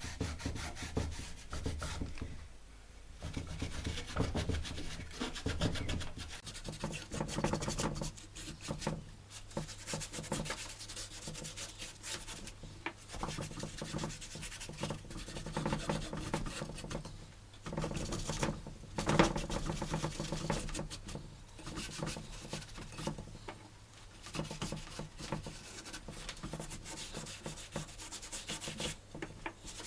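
Steady hand-rubbing strokes on mahogany-faced plywood as its cut edge is darkened by hand, pausing briefly now and then. A faint steady hum lies underneath.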